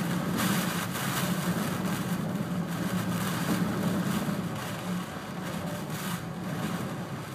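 Storm-force wind gusting hard and rushing past the microphone, over a steady low hum; the gusts ease a little in the second half.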